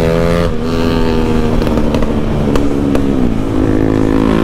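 Motorcycle with an aftermarket exhaust running while riding. The engine note drops about half a second in and again a little after three seconds, with sharp exhaust pops and crackles as it eases off.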